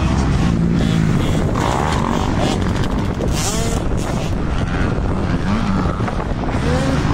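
Dirt bike engines revving up and falling back again and again as they ride the motocross track, with wind rumbling on the microphone.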